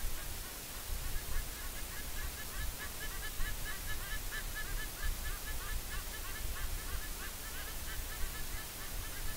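White-bellied sea eagles giving a rapid series of goose-like honking calls, many short notes a second, growing louder about three seconds in, over a steady hiss from the camera feed.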